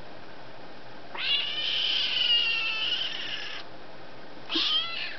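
A kitten screaming meows: one long, high call held for about two and a half seconds, then about a second later a short call that falls in pitch.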